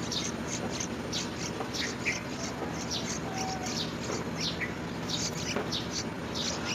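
Yellow-vented bulbul chirping: a quick, continuous series of short, high chirps that fall in pitch, two or three a second. A steady low hum runs underneath.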